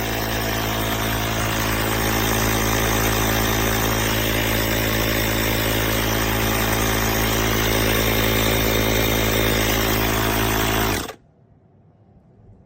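DIYtoolifz 160PSI cordless tire inflator running steadily as it pumps air, its small compressor motor giving an even hum with a hiss over it. It cuts off abruptly about eleven seconds in.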